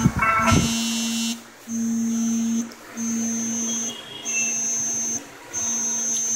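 A brief, louder sound with several pitches in the first second, then a steady electronic tone at a low and a very high pitch that pulses on for about a second and off for about a third of a second, repeating throughout.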